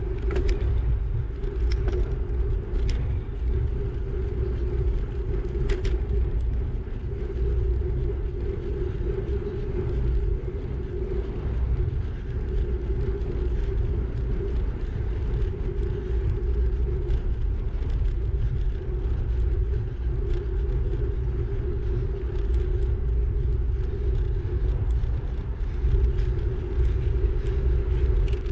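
Wind buffeting the microphone of a camera on a moving bicycle: a steady, loud rumble with a constant low hum and a few faint ticks.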